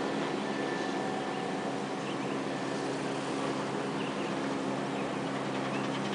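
The twin Pratt & Whitney PT6A turboprop engines of a Beechcraft 1900D running steadily: an even propeller drone made of several held low tones.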